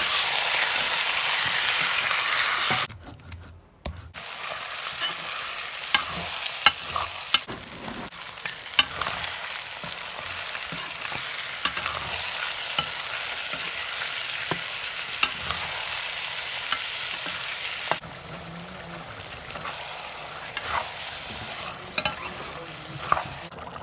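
Curry ingredients frying in hot oil in a cooking pot: a loud sizzle for the first few seconds, then, after a brief break, a quieter steady sizzle with the sharp clicks and scrapes of a spoon stirring against the pot.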